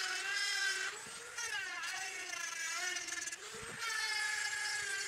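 Dremel rotary tool with a stone bit grinding an epoxy resin knife handle and its steel tang: a high, steady motor whine whose pitch sags and recovers a few times as it loads.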